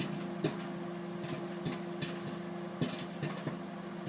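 Microwave oven running with a steady hum while popcorn kernels pop inside a Starmaid Superstar microwave popcorn maker, in sharp, irregular pops roughly every half second.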